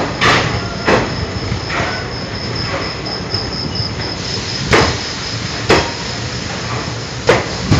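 Express passenger train running through a station without stopping: a steady rumble of the wheels with sharp, unevenly spaced clacks over the rail joints and points, about six of them. A thin, steady high tone runs above it.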